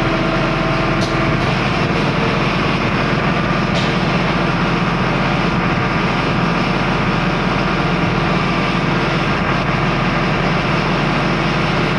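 Tractor diesel engine running steadily, powering the hydraulics of a tractor-mounted knuckle boom crane. A steady whine over the engine stops about a second and a half in.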